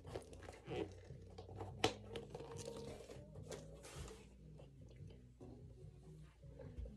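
Rustling, crinkling and light clicks and knocks of small belongings being handled and sorted by hand, scattered irregularly, with faint music playing in the background.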